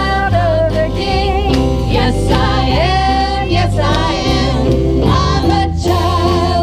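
Live band playing and singing: electric guitar and drums under several voices singing together, a man's lead with women's voices in harmony.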